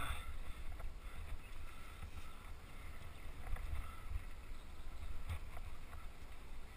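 Mountain bike rolling down a rough dirt singletrack, heard through an action camera: a steady low rumble of wind and ride vibration on the microphone, with a few faint knocks from the bike over the trail.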